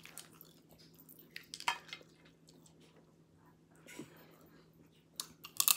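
Quiet eating sounds: chewing with a few short, wet mouth clicks and smacks, and soft crackles as a cooked shrimp is peeled by hand.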